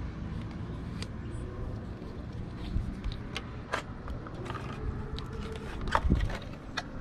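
Scattered light clicks and taps of small parts being handled at an outboard motor's open thermostat housing, with the sharpest knock about six seconds in, over a steady low rumble.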